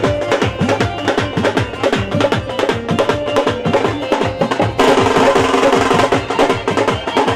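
Music with fast, dense drumming and a melody; about five seconds in it grows louder as held notes come in.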